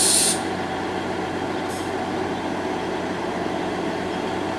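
Class 158 diesel multiple unit standing at the platform with its underfloor diesel engines idling in a steady hum. A loud hiss cuts off suddenly just after the start.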